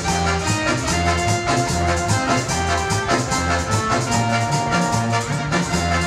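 Dance music with a steady beat, a repeating bass line and percussion.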